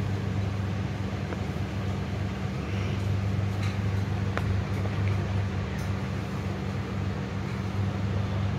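A steady low hum, with a few faint clicks as plastic pieces are set down on a magnetic chess board.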